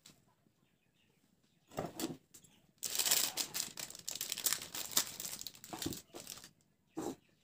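Foil spice sachet crinkling and tearing as it is handled and torn open, in bursts: a short one about two seconds in, a longer run of crackling from about three to six and a half seconds, and another short one near the end.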